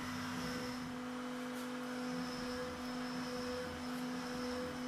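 Carbide 3D router spindle on a Shapeoko 3 XXL CNC running with a steady hum while the machine mills countersunk screw holes in its wasteboard.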